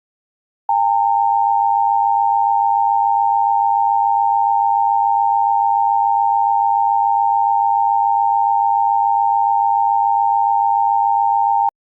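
Emergency Alert System attention signal: a loud, steady alarm tone held for about eleven seconds. It starts just under a second in and cuts off abruptly near the end.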